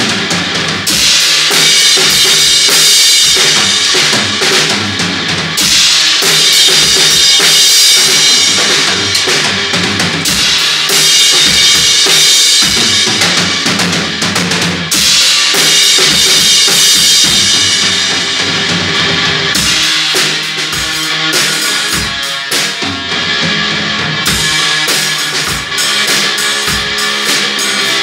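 Loud garage-rock jam: a drum kit with kick, snare and crashing cymbals, under distorted electric guitar and bass. About two-thirds of the way through the high wash thins out and the separate drum hits stand out.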